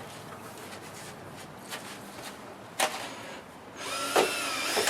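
Power drill running for about a second and a half near the end, its whine dipping slightly in pitch, with a sharp knock a little before it.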